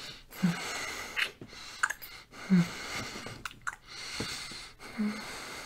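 A man kissing close to the microphone: soft wet lip smacks, short low hums and breathy exhales, repeating every second or so.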